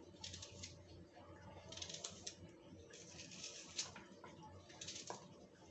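Dry papery onion and garlic skins crackling and rustling as they are peeled by hand with a small knife, in several short bursts.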